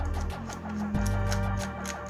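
Background music with a bass line and a regular ticking beat.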